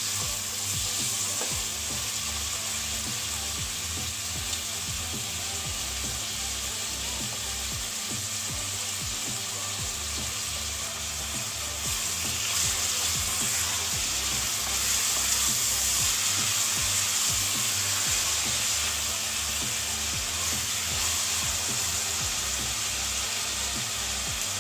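Chopped onions frying in hot oil in an open pressure cooker, a steady sizzle that grows a little louder about halfway through, with a spoon stirring them now and then.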